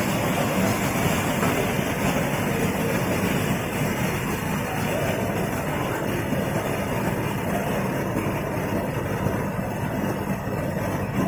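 Tea color sorter running: a steady, even machine noise with no breaks.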